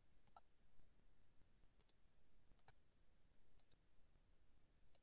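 Faint computer mouse clicks over near silence: four or five quick click pairs, roughly a second apart.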